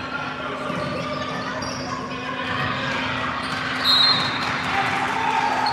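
Basketball game sounds echoing in a large gym: a ball bouncing on the hardwood, with sneaker squeaks and scattered voices from players and spectators. A short, high-pitched tone stands out about four seconds in.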